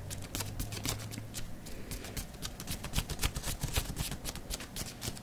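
A feather fan waved quickly close to the microphone, making a rapid run of short, fluttering swishes.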